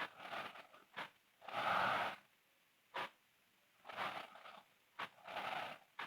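A sleeping girl snoring: four noisy snoring breaths in quick succession, the second the loudest and longest. A short sharp tick repeats about once a second.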